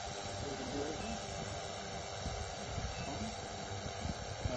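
DJI Matrice 600 hexacopter hovering: its rotors give a steady whine with several held tones.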